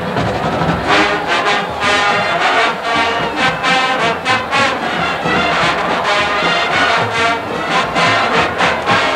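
A marching band's brass section playing loudly, in punchy rhythmic phrases.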